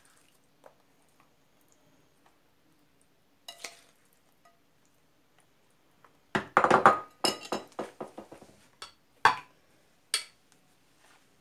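A metal spoon clinking and scraping against glass dishes as sticky walnut mixture is spooned out. There are a few scattered clicks, then a louder cluster of taps and scrapes a little past the middle, and a couple more clinks near the end.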